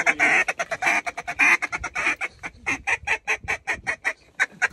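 Hand-blown goose call worked in a fast, even string of short clucking notes, about seven a second, with a brief pause about four seconds in.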